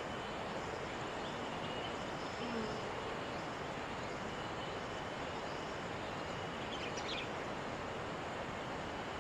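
Steady outdoor background noise with faint, brief bird chirps, clustered about seven seconds in.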